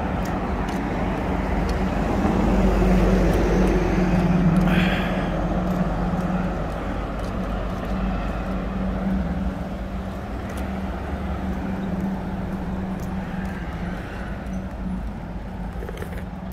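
A motor vehicle's engine running steadily with a low rumble, louder a few seconds in and then slowly fading.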